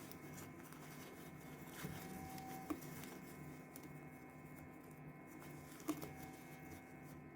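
Faint handling of the jacket fabric and zipper as they are positioned under the sewing machine's presser foot, with three light clicks, over a low steady hum.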